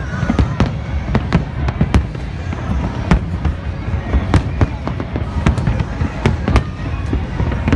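Fireworks display: a rapid, irregular run of bangs and crackles, several a second, over a steady low rumble.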